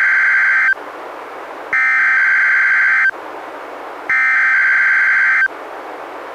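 NOAA Weather Radio SAME digital header opening a Required Weekly Test: bursts of buzzy, warbling data tones, the end of one burst and then two more, each lasting over a second, with about a second of radio hiss between them.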